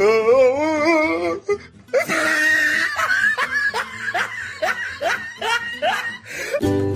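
Laughter over music: a long wavering laugh, then after a short pause a run of short rising "ha" laughs, about two a second.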